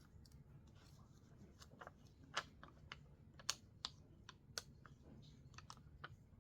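Scattered sharp clicks and taps from hands handling paper-craft materials, about a dozen in all, the loudest in the middle of the stretch, over a faint steady low background.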